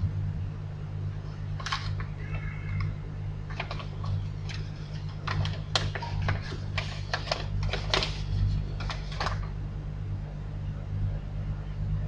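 Light clicks and rustles from handling an opened parcel and its paper contents, scattered and irregular, over a steady low hum.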